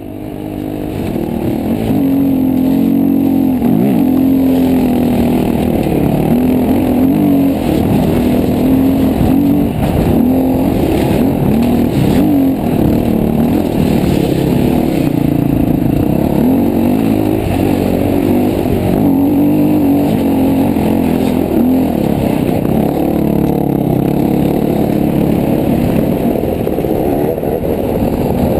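KTM dirt bike engine running, heard from a camera on the bike and muffled, its pitch rising and falling with the throttle as it rides over slickrock. It fades in over the first second or two.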